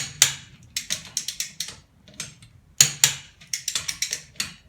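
Ratcheting click-type torque wrench on wheel nuts: loud sharp click pairs as the wrench breaks over at its set torque, a sign the nuts are already tight, with quick runs of lighter ratchet clicks in between as it is swung back and set on the next nut.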